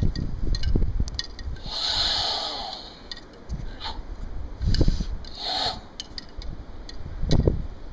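Forceful Sanchin kata breathing: a long breath about two seconds in and a shorter one after five seconds. Low gusts of wind buffet the microphone throughout.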